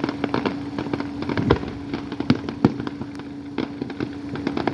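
Fireworks going off: rapid pops and crackles with scattered louder bangs, over a steady hum.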